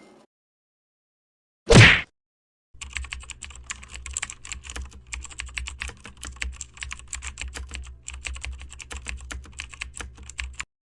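A short, loud burst about two seconds in, then rapid typing on a computer keyboard, many keystrokes a second over a low steady hum, stopping just before the end.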